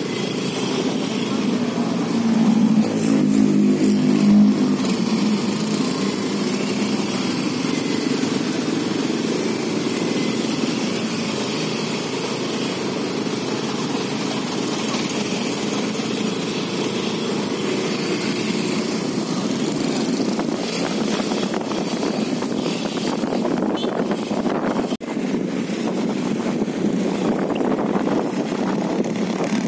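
Motorcycle engine running at low speed while creeping through jammed traffic, mixed with the engines of the cars, trucks and buses alongside. A louder engine note swells for a few seconds near the start.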